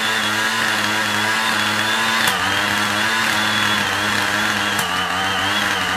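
Gasoline backpack atomizer (mist blower) running steadily at high throttle: the buzz of its two-stroke engine under a steady high fan whine, with slight wavers in engine speed and a couple of brief clicks.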